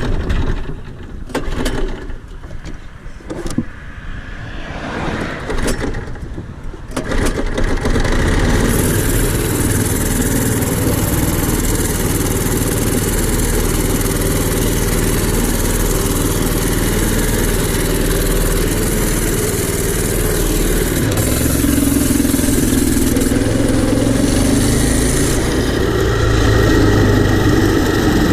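Go-kart's small petrol engine being started: several seconds of short, uneven bursts, then it catches about seven seconds in and keeps running steadily, its sound shifting a little later on.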